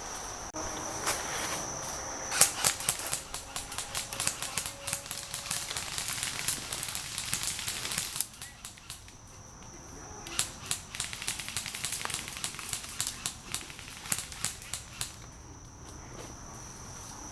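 Airsoft guns firing long, rapid strings of sharp shots, from about two seconds in to eight seconds and again from about ten to fifteen seconds. Crickets chirr steadily in the pauses.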